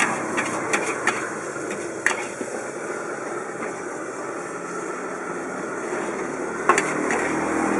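A metal spatula scraping and knocking against a large wok as fried rice is stir-fried, with a few sharp clanks, over a steady rushing noise.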